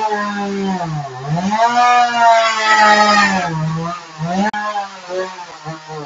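Chainsaw running near full throttle while cutting into a refrigerator. Its pitch sags sharply and recovers several times as the chain bogs down under load in the cut.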